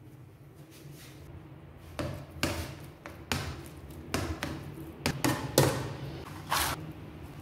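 Metal fork knocking and scraping against the sides and bottom of an aluminium pot while stirring a thick mash of potato, eggplant and zucchini, in about a dozen irregular strokes starting about two seconds in.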